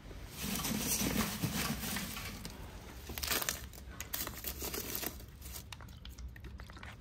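Lumps of coal being shifted by gloved hands in a barrel forge, with irregular crunching, scraping and crinkling handling noise as the fire pit is laid.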